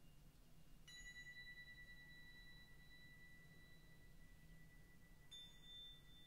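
Very faint, sustained pure tones from an ambient electronic soundtrack, like sine tones or tuning forks: a high tone sets in with a soft click about a second in, and a second, higher tone joins it near the end, over a low hum.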